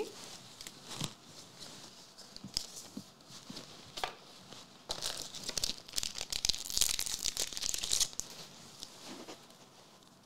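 A trading-card booster pack torn open by hand, its wrapper crackling and crinkling in a loud burst between about five and eight seconds in. Before that come light clicks and rustles of cards being handled.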